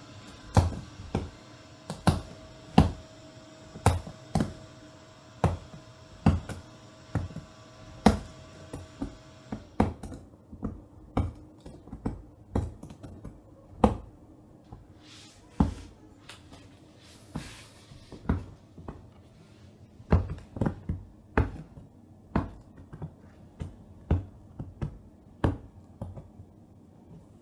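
A long series of sharp taps or knocks, one to two a second at an uneven pace, with a faint steady tune behind them for the first ten seconds or so.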